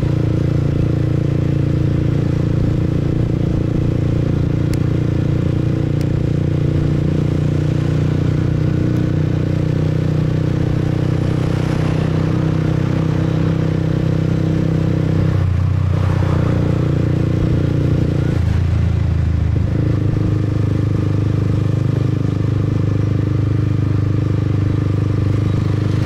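Motorbike running steadily under way, its engine note mixed with road and wind noise; the note changes briefly about midway through, as with a throttle change.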